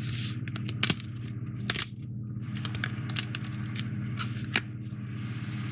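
Pieces of a CubicFun foam-board 3D puzzle being pressed out of their card sheet and handled: a run of sharp clicks and snaps, the loudest about a second in and just before two seconds. A steady low hum runs underneath.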